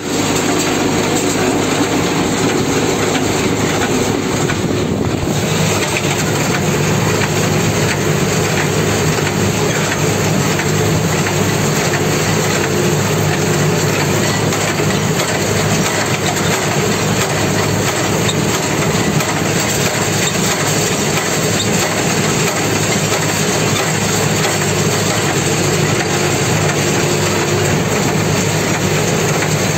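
Tümosan 8095 tractor engine running steadily under load, heard from inside the cab, together with the mechanical noise of a Hisarlar small square baler picking up and baling ryegrass.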